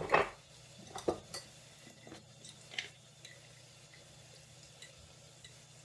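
Spoon clinking and tapping against cookware a few times while spices go into the pot, mostly in the first three seconds, then only a faint steady background.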